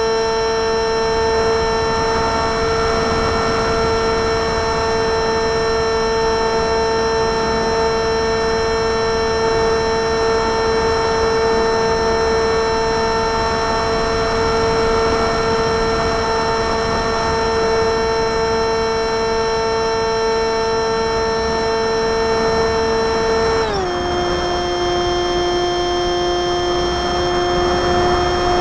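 RC flying wing's motor and propeller heard from a camera on board: a steady whine over a rush of air. About 24 s in, the pitch drops and then holds lower, as the throttle is eased back.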